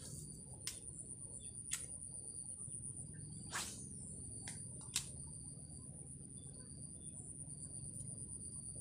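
Insects giving a faint, steady high-pitched drone, with four sharp clicks through the first half.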